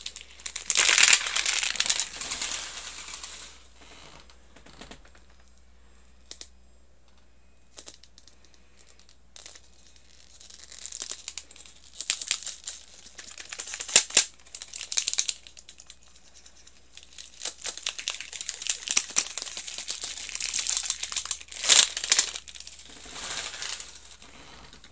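Crinkly plastic wrapping being peeled and torn off a Miniverse Make It Mini Food surprise ball. It comes in bursts of crinkling with a quieter pause early on and a few sharp clicks among them.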